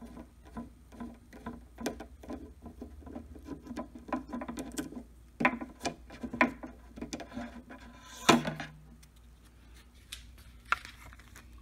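Handling noise: a run of light taps, clicks and rubs as a tortoiseshell pickguard is worked loose and lifted off an archtop guitar, with one sharper knock about eight seconds in.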